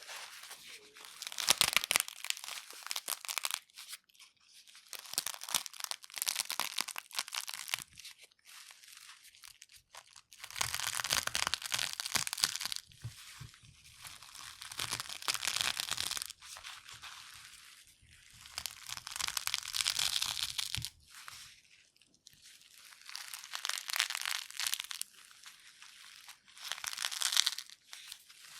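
Eggshell pieces wrapped in a paper towel being crushed by hand: dense crackling and crunching of brittle shell with the crinkle of the paper, in several spells of a few seconds each with short pauses between.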